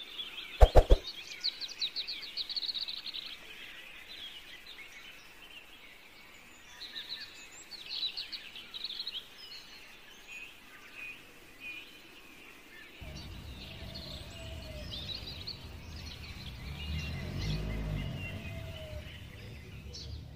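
Small birds chirping and twittering, with quick trills, against a faint background hiss. A couple of sharp clicks come near the start, and a low rumble joins about two-thirds of the way through.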